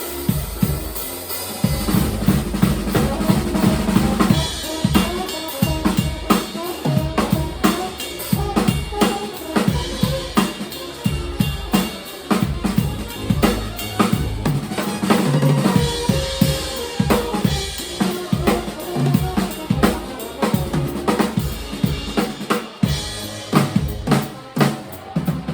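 Drum kit played live and busily, with rapid kick, snare and rimshot hits, and other band instruments sounding underneath.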